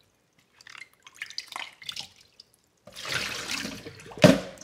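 Hands splashing natural sheep sausage casings about in a stainless steel bowl of water, with irregular drips and splashes. Near the end comes a steadier wash of water, and one sharp clunk a little past four seconds.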